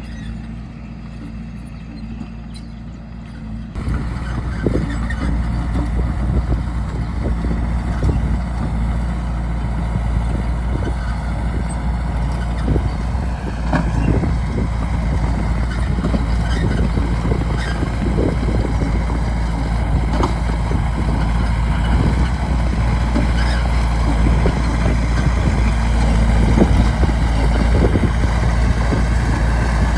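Bulldozer's heavy diesel engine running. About four seconds in it gets abruptly louder, with many scattered knocks and cracks over it, and it keeps growing slowly louder.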